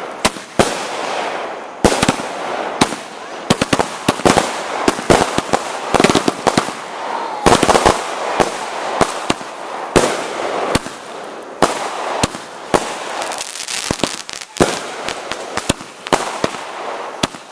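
Aerial fireworks going off: a long, irregular run of sharp bangs from bursting shells, some in quick clusters, with a hissing crackle between them.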